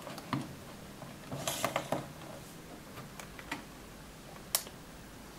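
Light clicks and knocks of hands working the small switches and the combined volume/power knob on two Panasonic TR-1030P pocket TVs to switch them on. There is a quick cluster of clicks about one and a half to two seconds in, and a single sharp click near four and a half seconds.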